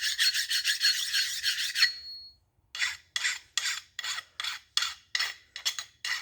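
Hand filing on a steel connecting rod's mating surface to take off high spots: a continuous rasping scrape for about two seconds, then after a short pause a run of quick, even back-and-forth strokes, several a second.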